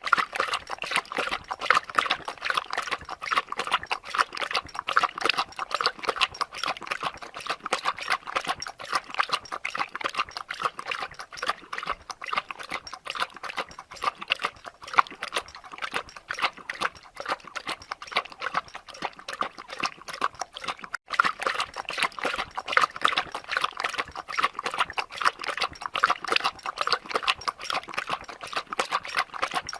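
A dog lapping water, a rapid, continuous run of wet laps with a momentary break about two-thirds of the way through.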